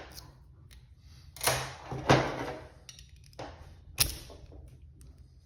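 Metal handling noises of a Brinks padlock being worked with a bypass or picking tool: short scraping rattles, then a sharp click about four seconds in.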